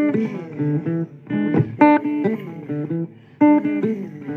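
Blues guitar playing the instrumental opening of a song: short picked phrases of notes, several bent in pitch, coming about every one and a half seconds.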